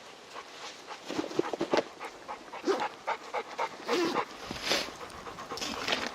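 Labrador retriever panting in quick, short breaths, easing off about four seconds in.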